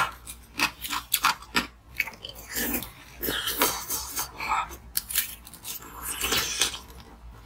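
A person biting and crunching a piece of blue frozen ice in their mouth: a run of irregular sharp crunches, the loudest right at the start.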